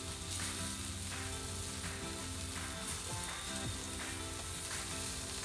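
Bacon-wrapped stuffed jalapeños sizzling steadily on a hot grill grate over an open fire, with a few faint taps and clicks of metal tongs turning them.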